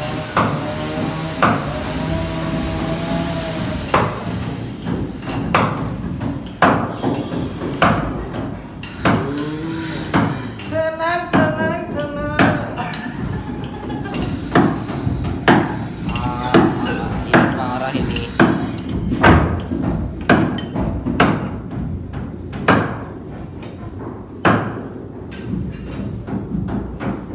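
Hammer blows on wood, irregular at roughly one a second, from shipwrights working on the wooden boat hull; the strikes begin about four seconds in. Voices carry in the background.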